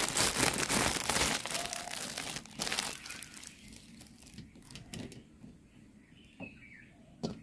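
Packaging crinkling and rustling as it is handled and opened, loud for about the first three seconds, then fading to a few faint rustles and clicks.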